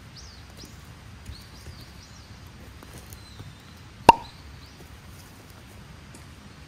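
Quiet outdoor background with faint, high, short bird chirps, broken about four seconds in by a single sharp plop.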